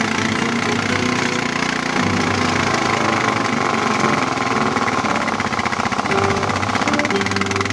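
A vehicle engine running steadily at low speed, heard close up, with music coming back in near the end.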